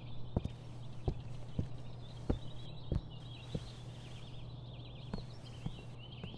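Footsteps on a hard floor, about one every two-thirds of a second, over a low steady hum and faint high chirping like birds.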